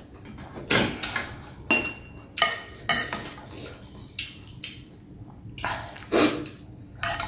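A metal spoon and chopsticks clinking and scraping against a glass bowl of noodle soup, a string of separate sharp clinks, some ringing briefly, mixed with the noises of eating noodles; the loudest burst comes about six seconds in.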